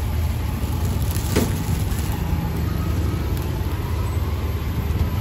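Steady low engine noise of motor traffic close by, with one sharp click about a second and a half in.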